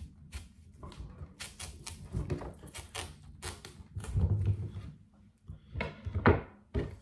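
Cut watermelon wedges being pulled apart and moved about on a cutting board: a run of crisp cracks and knocks, with heavier thuds about four seconds in and just after six seconds.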